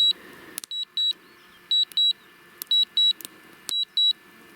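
Quadcopter remote controller beeping a warning: short high-pitched double beeps repeating about once a second, a low-battery alarm while the drone flies itself home. A few sharp clicks sound between the beeps.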